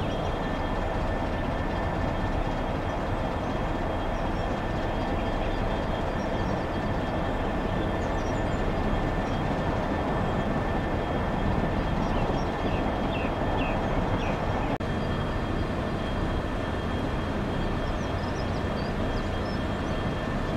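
Diesel locomotive engine running steadily, a constant low rumble with a faint steady whine above it.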